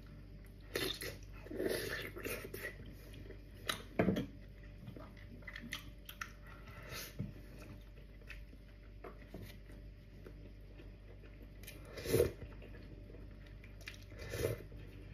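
Close-up mouth sounds of eating gelatinous beef trotter stew: wet chewing and lip smacks in scattered bursts, the loudest about 12 seconds in. Near the end, a sip of soup from a spoon.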